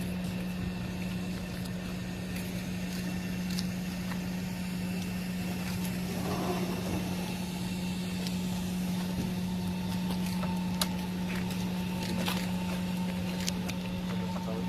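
Helicopter running in steady flight, heard from inside the cabin as a constant low hum over a steady engine and rotor noise, with a few faint clicks.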